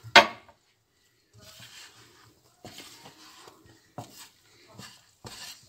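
Water poured into a bowl of flour with a short loud splash right at the start, then a wooden spoon stirring and scraping through the wet flour in short strokes, with a knock about four seconds in.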